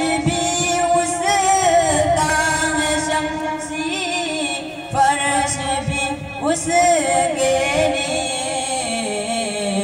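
A student's voice singing an Urdu devotional poem (naat) in long held, ornamented notes.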